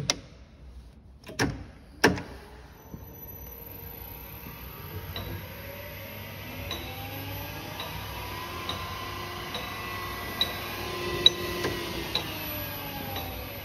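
Three sharp clicks of control-panel switches in the first two seconds. Then the ribbon blender's 4 kW geared motor drive starts: its whine rises in pitch over a few seconds, holds steady with a light tick about once a second, and begins to fall in pitch near the end.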